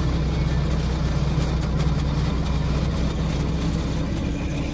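Regional passenger train standing at the platform with its doors open, idling with a steady low hum.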